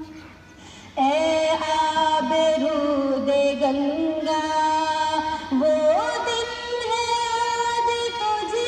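A sung melody with long held notes that glide between pitches, in the manner of a song or chant. It drops to a quiet pause in the first second, then the singing comes back in strongly.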